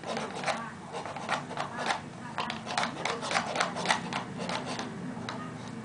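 Small plastic spoon scraping and tapping inside a plastic cup: a quick, irregular run of clicks and scrapes that thins out after about four seconds.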